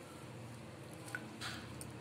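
Stuffed dough dumplings dropped into boiling water in an aluminium pressure cooker: a small tick and then a short soft splash about one and a half seconds in, over a low steady hum.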